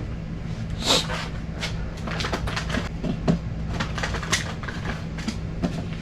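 Scattered clicks and knocks of gear being handled, over a steady low hum.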